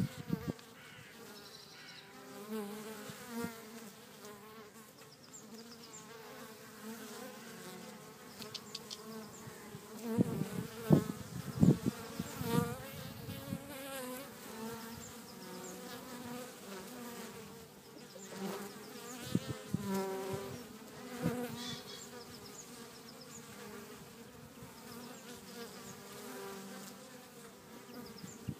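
Many honeybees buzzing around a beehive: a continuous, wavering hum of many wingbeats, with louder buzzing swelling up a few times, about a third of the way in and again past two thirds.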